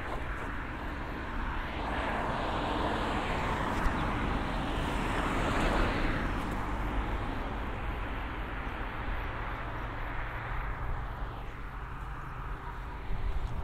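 A motor vehicle passing by: its engine and tyre noise swells over the first few seconds, peaks about halfway in, then fades away.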